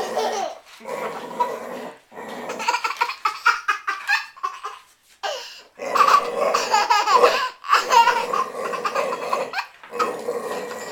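A young child laughing and squealing, in repeated bursts separated by short pauses.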